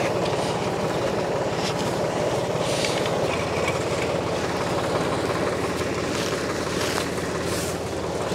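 John Deere 820 three-cylinder diesel tractor engine running steadily, its low note deepening a little about three seconds in.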